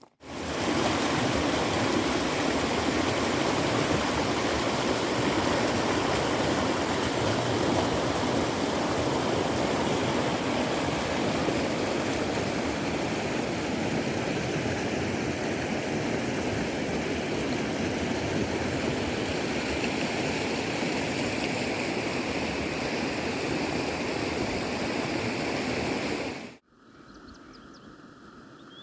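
Mountain river rushing over rocks, a steady loud rush of water. It cuts off suddenly near the end, leaving a much quieter background with a few faint high chirps.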